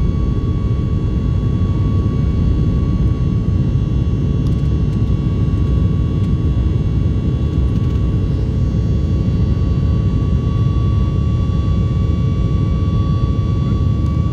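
Boeing 737 jet engines at climb power, heard inside the passenger cabin just after takeoff: a steady dense rumble with a thin, steady whine above it.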